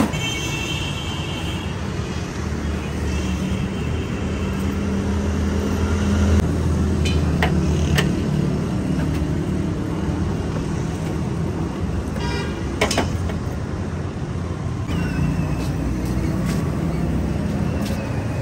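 Street traffic: a steady engine rumble with vehicle horns honking three times, near the start, a few seconds in, and about two-thirds of the way through. A few sharp clicks sound about halfway through.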